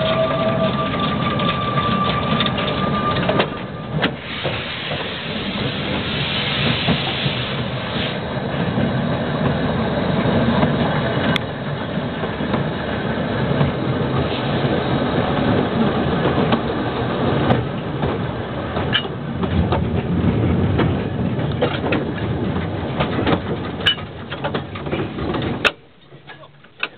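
Narrow-gauge 0-4-4-0 Mallet steam locomotive running along the line, with hissing steam and scattered sharp clicks of wheels over rail joints. A steady high tone sounds for the first three seconds, and the sound cuts off sharply near the end.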